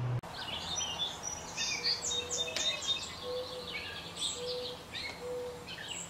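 Several wild birds chirping and calling at once: a jumble of short, high chirps and trills, with a lower plain note repeated about four times, roughly a second apart.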